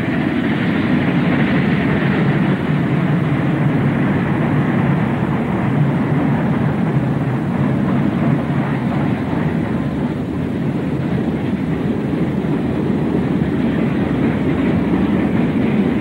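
Steam locomotive running with a train: a steady, dense rumble without a clear beat.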